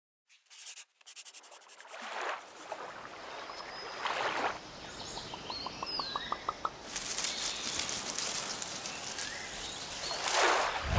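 Electronic sound-design ambience. A filtered hiss fades in with stuttering clicks, whooshing swells come about two, four and ten seconds in, and a quickening run of short ticks grows louder through the middle. Small chirps sit over the hiss.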